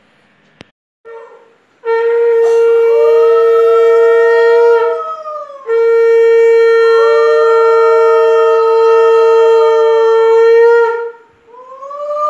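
Conch shell (shankha) blown in two long, loud blasts, the second longer than the first; each holds a steady tone, with a second, slightly higher tone that swells up and falls away above it. A short click comes just before the first blast.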